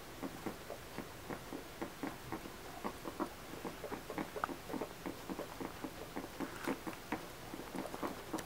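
Guinea pig foraging in straw bedding: quick, irregular small clicks and rustles, several a second.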